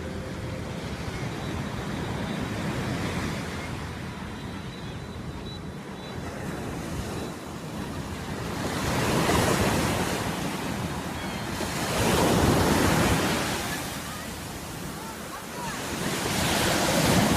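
Sea waves breaking on a beach: a steady wash of surf, with three louder breakers crashing in the second half.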